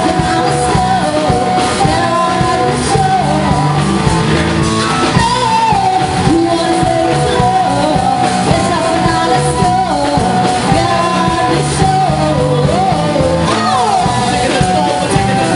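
Live band playing amplified music with electric guitar and keyboard, with sung vocals over it, steady and loud throughout.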